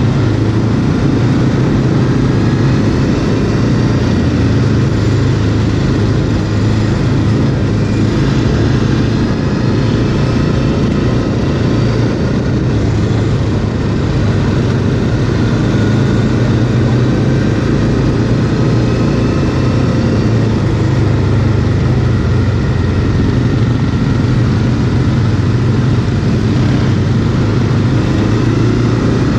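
Quad (ATV) engine running steadily while riding, with only slight rises and falls in pitch.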